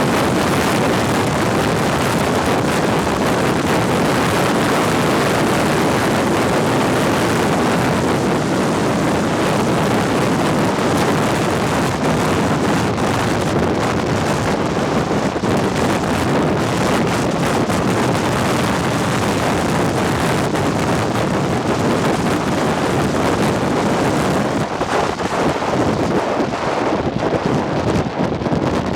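Dense freeway traffic on Interstate 10: a steady wash of tyre and engine noise from many passing cars, with wind buffeting the microphone.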